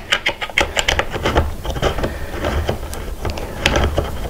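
A long screw being turned into a gaming chair's armrest bracket with a small hand tool: a run of irregular clicks and scraping.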